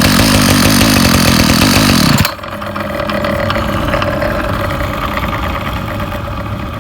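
Ryobi 705r 31cc two-stroke trimmer engine running at high throttle, then dropping back to idle about two seconds in. It carries a rattle likened to marbles: the cutting head doesn't spin with throttle because of a broken part in the drive.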